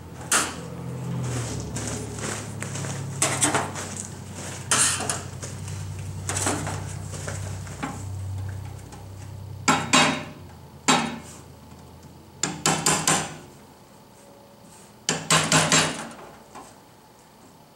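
Scattered sharp metal clinks and knocks from tools and parts being handled on a kerosene bullet heater's sheet-metal frame, some in quick clusters of three or four, with a faint low hum in the first half.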